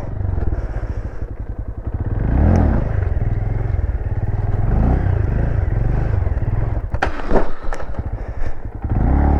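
Honda Grom's small single-cylinder motorcycle engine running under the rider, revs rising and falling a few times as he throttles through tricks. A few sharp knocks and clatters come from the bike about seven seconds in.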